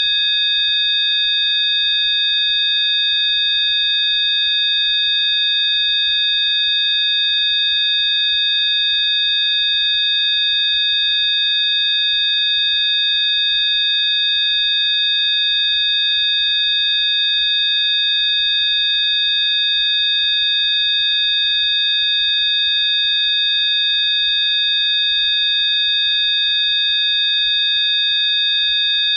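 Electronically generated sine tones, about four high-pitched tones sounding together, held steady without change: a Rife frequency-therapy tone track.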